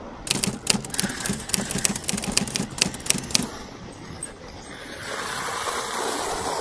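A typewriter key-click sound effect, a rapid run of clicks for about three seconds as caption text is typed out. About five seconds in, a steady rushing noise sets in as the dog sled runs along the snow trail.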